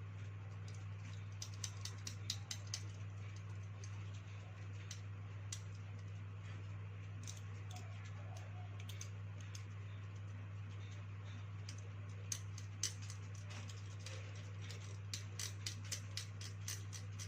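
Scattered light clicks and taps of small parts being handled while the dive torch's corroded circuit board is being swapped for another, over a steady low hum.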